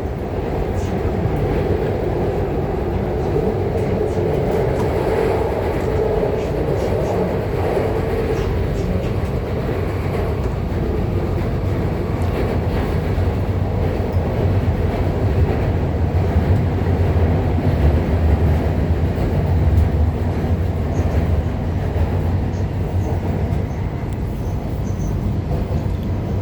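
Guangzhou Metro Line 5 train running between stations, heard from inside the car: a steady low rumble of wheels and running gear, with a humming tone in the first third that fades away.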